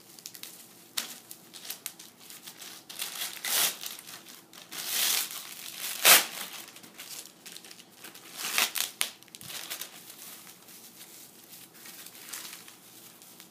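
Plastic wrapping being crinkled, torn and pulled off a hockey stick blade, in irregular rustling bursts, the sharpest about six seconds in.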